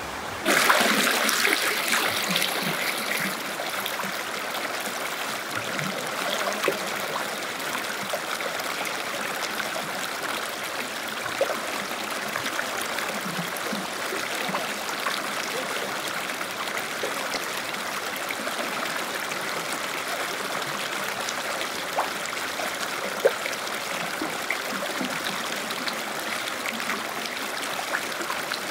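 Shallow stream water rushing steadily over a flat rock slab, close to the microphone. It starts abruptly about half a second in and is loudest for the first few seconds, then settles to an even rush.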